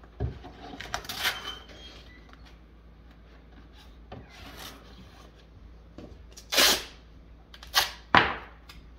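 Masking tape being pulled off the roll and torn while masking paper is fitted in a cabinet opening: soft rustling and handling at first, then three short, loud rips in the second half, the last two close together.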